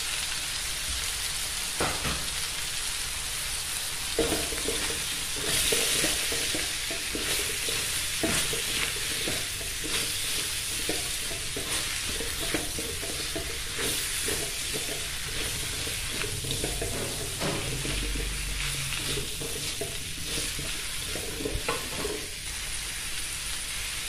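Vegetables, egg and meatballs sizzling steadily in an aluminium wok while a spatula stirs and scrapes them. A run of scraping strokes against the pan starts about four seconds in.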